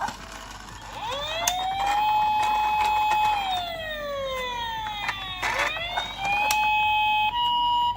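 Toy ambulance minicar's electronic siren wailing: the pitch rises about a second in, holds, slides down, rises again, then switches near the end to a steady higher tone. A few sharp clicks sound over it.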